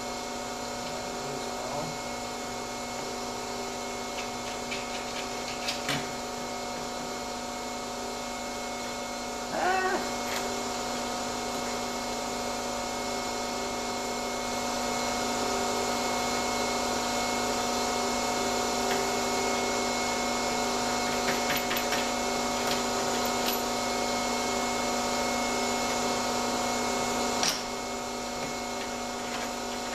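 Steady whining hum of a running motor, holding several fixed pitches, with a few short metallic clicks and clinks of tools. It grows slightly louder about halfway through.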